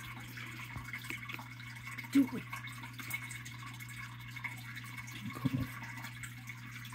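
A hand moving and sloshing in a small plastic tub of water while catching tadpoles, with small splashes and drips and a couple of brief louder plops. A steady low hum sits underneath.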